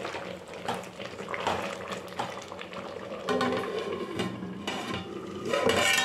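Metal ladle stirring thick, boiling vegetable sambar in an aluminium pot, knocking and scraping against the pot with a few sharp clinks in the first seconds. Later an aluminium plate lid is handled over the pot with metallic rattles.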